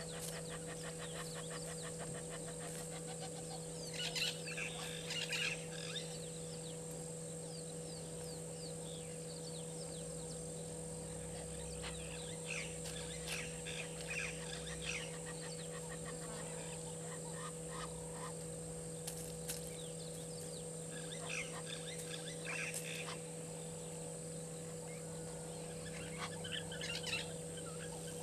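Wild birds calling in short bursts every few seconds, over a steady hum.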